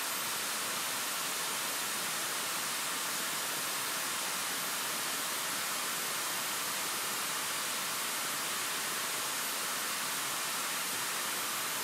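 Model jet turbine running up to its full set speed of about 120,000 rpm on a thrust test stand: a steady jet hiss with a very high whine that climbs at the start, then holds level at full speed.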